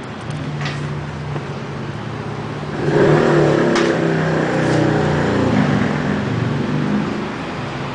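A motor vehicle engine running, with pitch shifting up and down; it gets clearly louder about three seconds in, then eases off toward the end.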